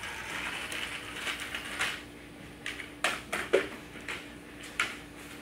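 A child's small plastic three-wheeled kick scooter rolling across a concrete floor, its wheels and frame giving a handful of sharp clicks and rattling knocks. A faint steady hum sits underneath.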